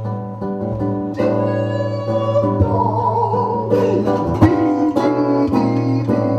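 Acoustic guitar strumming a samba rhythm in an instrumental break between sung lines, with a steady low bass note under the chords.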